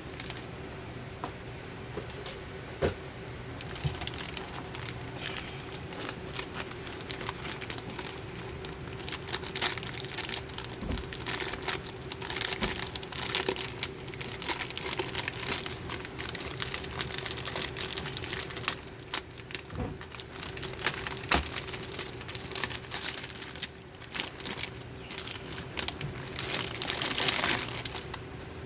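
Plastic and cardboard packaging crinkling and rustling with scattered light knocks as computer parts are unpacked from their box, over a faint steady hum.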